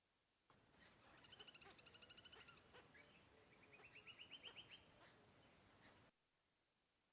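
A bird calling in two quick trilled runs of rapidly repeated high notes, the second run rising in pitch, over faint outdoor background noise. The sound starts suddenly about half a second in and cuts off abruptly about a second before the end.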